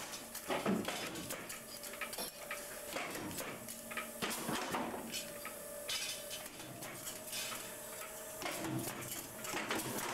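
Irregular clinking and clattering of metal parts being handled at punch presses, with stacked metal discs knocking together, over a faint steady machine hum.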